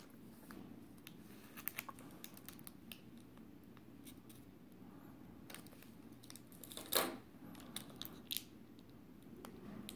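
Scattered small clicks and taps of handling a laptop screen panel as its 30-pin display cable connector is wiggled loose, with one louder knock about seven seconds in.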